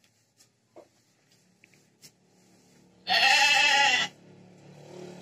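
A sheep gives one loud bleat about a second long, a little after three seconds in. Before it, faint scrapes and rustles of a hoe being worked through a heap of chopped grass fodder.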